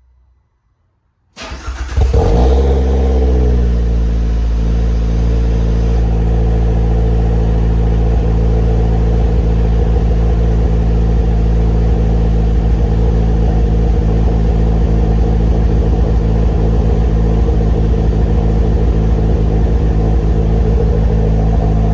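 Car engine cranking briefly about a second in, catching with a short rev, then settling into a steady idle. The engine is misfiring on cylinder 3, which the owner thinks is probably an exhaust valve.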